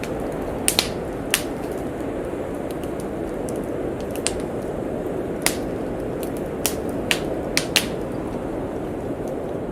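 Wood fire crackling in a fireplace: sharp, irregular pops, about ten of them spaced unevenly, over a steady rushing noise of snowstorm wind.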